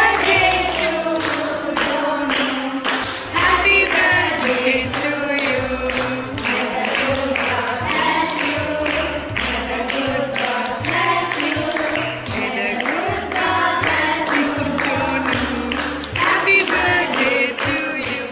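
A group of voices singing together over steady rhythmic hand clapping.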